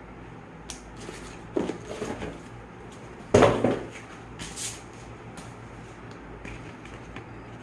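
Handling noises from unboxing a gimbal: a few knocks, clicks and rustles of packaging and parts, the loudest clatter about three and a half seconds in, over a steady low hum.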